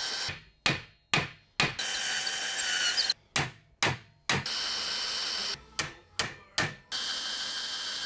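Cordless drill boring dowel holes in red oak in short runs of one to two seconds, the last run with a high whine, alternating with three groups of three sharp hammer taps driving dowels into the holes.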